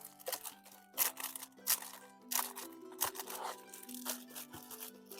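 Paper crinkling and rustling in short irregular bursts as craft papers are handled, over soft harp and guitar music.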